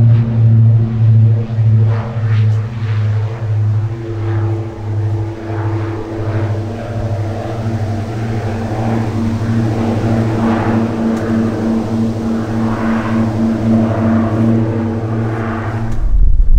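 Diamond DA42 twin-engine propeller aircraft at takeoff power, rolling down the runway and climbing away: a loud, steady low drone that pulses about twice a second. Near the end it cuts abruptly to wind rumbling on the microphone.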